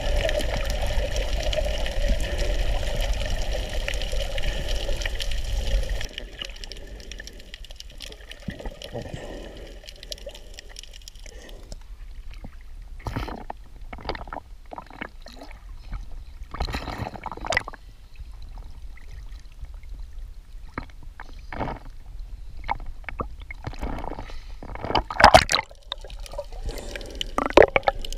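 Water rushing steadily around the camera, dropping off suddenly about six seconds in. After that, quieter sloshing and gurgling with scattered clicks, and two louder sloshes near the end.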